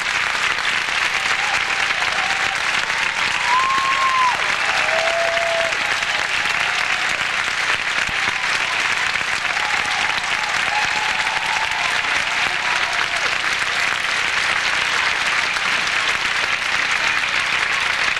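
Theatre audience applauding, a dense, steady clapping that goes on without a break, with a few faint voices or whistles rising above it.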